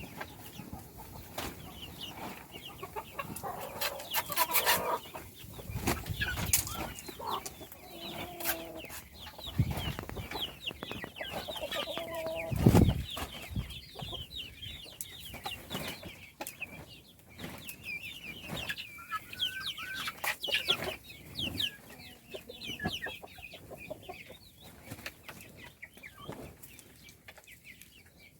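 A flock of chicks cheeping continuously in short high chirps, mixed with scattered sharp clicks and knocks and a few lower clucks, the loudest about twelve seconds in.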